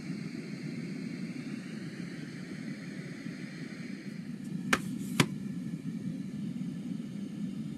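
Steady low background rumble with two sharp clicks about half a second apart near the middle.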